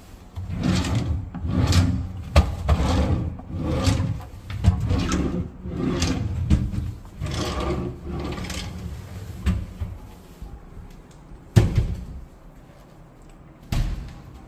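Wooden cabinet drawers being pulled open and pushed shut several times in a row, each with a sliding rub, followed by two sharp knocks about two seconds apart as the cabinet doors shut.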